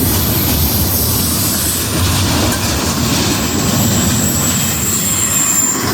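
Norfolk Southern intermodal freight train rolling past at speed: a steady loud rumble of steel wheels on rail. A thin high wheel squeal comes in during the second half.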